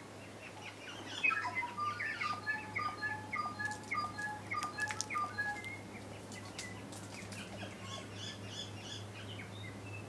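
Bird song: a run of short, clear notes at several pitches, with a few sharp clicks mixed in midway, followed near the end by a higher, quicker phrase.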